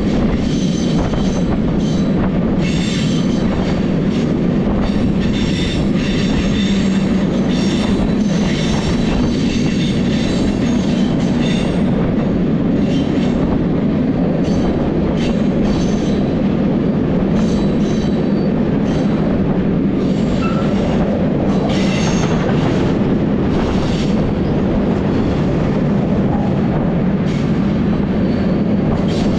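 A moving train: a steady heavy rumble with clicks of wheels over rail joints and bouts of high-pitched wheel squeal, strongest a few seconds in and again past the middle.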